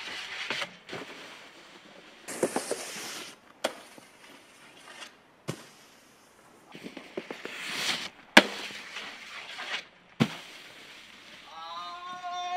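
Snowboard scraping over packed snow, with several sharp clacks of the board striking a metal handrail, spaced a couple of seconds apart.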